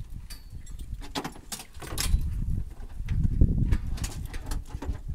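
Light metallic clinks and rattles of line hardware and cable being handled, over an uneven low rumble.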